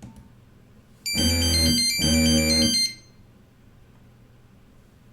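A mobile phone ringtone preview through the phone's small speaker: a short synthesized musical phrase in two parts, with a bass note under bright high melody notes. It starts about a second in and stops a little before the three-second mark, after a light tap at the very start.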